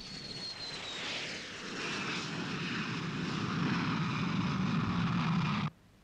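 Sukhoi jet fighter's engine roaring and growing louder as it approaches, with a high whine falling in pitch in the first second. The sound cuts off abruptly near the end.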